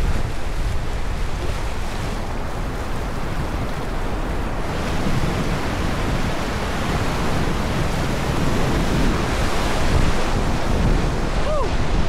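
Whitewater of a Class III rapid rushing around an inflatable raft, with wind buffeting the microphone. The rush grows brighter and louder about halfway through as the raft enters the rapid, and louder again near the end.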